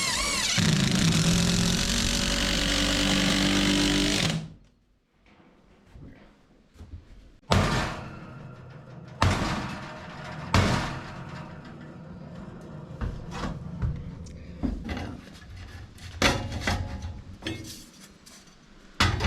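A power drill runs steadily for about four seconds, then stops suddenly. Scattered knocks and clunks of parts being handled follow.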